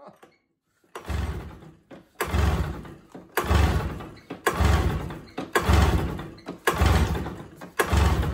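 Polaris 770 big-bore two-stroke twin snowmobile engine being pull-started by hand, seven quick pulls about one a second, each cranking it over hard without it catching. It has no choke and was primed only with fuel in the cylinders.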